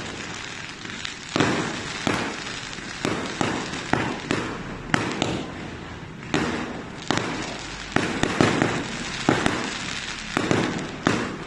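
Aerial fireworks bursting overhead: an irregular run of sharp bangs, about two a second, with noisy rumble between them.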